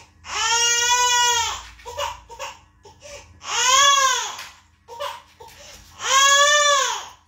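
Infant crying: three long wails, each rising and then falling in pitch, about two and a half seconds apart.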